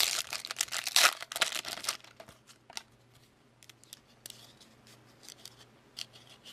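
A trading card pack wrapper being torn open and crinkled for about two seconds, then only faint scattered clicks and rustles.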